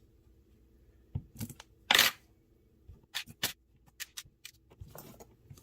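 Small clicks and clacks of metal parts and tools being handled while a pocket folding knife is taken apart, with one louder, short rasping clack about two seconds in and a run of single light clicks after it.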